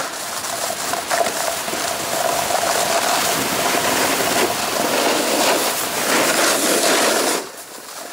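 Snowboard sliding over firm, thin snow: a steady scraping hiss of the board's base and edges on the snow, which drops away briefly near the end.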